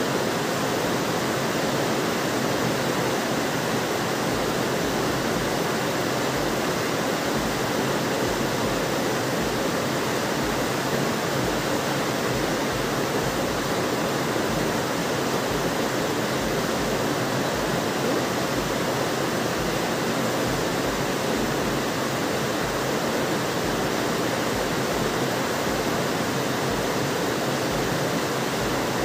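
A steady, unchanging rushing hiss, even in level throughout, with no separate knocks or clicks standing out from it.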